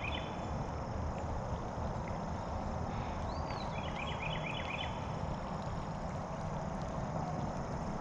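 Steady low outdoor rushing noise. About three seconds in, a songbird sings one arched whistle followed by a quick run of chirps.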